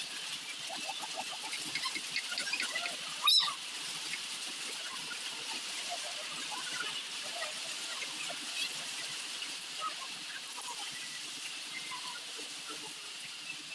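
Kitchen knife cutting a red onion on a wooden chopping board, with one sharp knock of the blade against the board about three seconds in. Faint chirps sound in the background.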